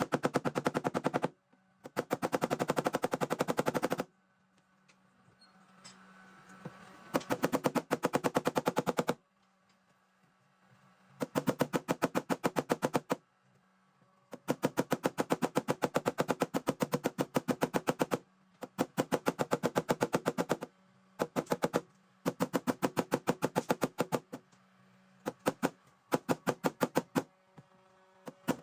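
Paintless dent repair knockdown tapping on a Studebaker quarter panel, knocking down the raised crown around a dent: runs of rapid, even taps, about ten a second, each run lasting one to four seconds with short pauses between.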